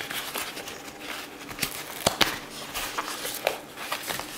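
A Bluetooth speaker being handled and slid out of its padded fabric carrying case: soft rustling and scraping with scattered clicks and knocks, the sharpest two close together about two seconds in.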